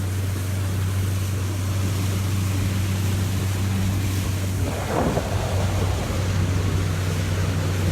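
Flats skiff's outboard motor running steadily underway, a low even drone, with wind buffeting the microphone and water rushing past the hull. A brief louder rush of water or wind about five seconds in.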